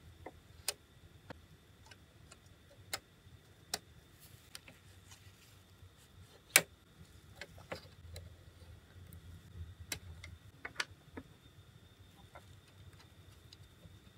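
Irregular sharp clicks and taps of small hard toy parts being handled, opened and set in place on a Chogokin Thousand Sunny model ship. The loudest click comes about six and a half seconds in.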